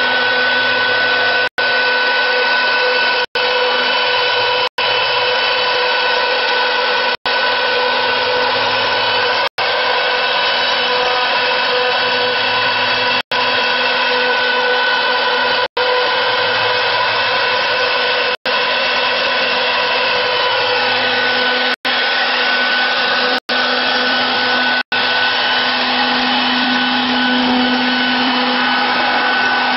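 2040 CNC router running, its spindle driven by a Delta VFD set at 250: a steady whine made of several fixed tones over a loud hiss. The sound cuts out for an instant about a dozen times.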